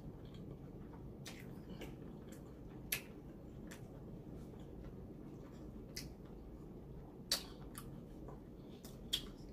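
Eating sounds: scattered sharp mouth clicks and smacks while chewing, a few seconds apart, over a steady low hum.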